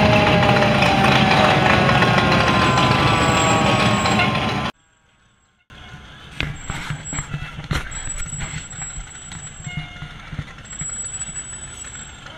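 Fire engine siren winding down, its pitch falling slowly over about four seconds over a loud engine rumble, then cutting off abruptly. After a second's silence, a quieter low vehicle rumble with scattered clicks.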